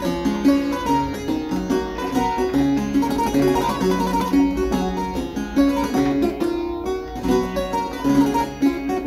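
Clavichord built from a Carl Fudge kit, played in a live improvisation: a continuous flow of quick notes with several sounding together.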